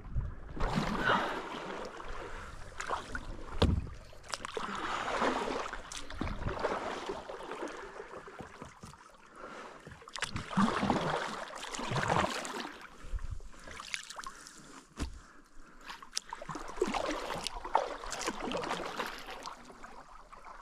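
Kayak paddle strokes through calm water: the blades dipping and pulling in a steady rhythm, a swell of splashing and dripping every one to two seconds, with a few sharp knocks in between.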